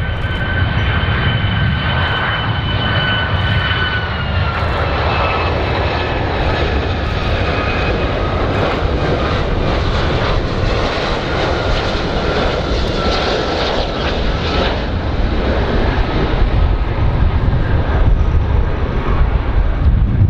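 Boeing 757 jet airliner's engines on landing approach: a steady rumbling roar with a high whine that drops slightly in pitch about four seconds in.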